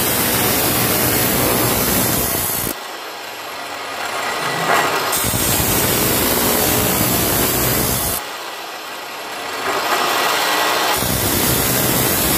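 A high-speed power tool running and cutting, loud and noisy, in several stretches that change abruptly every few seconds.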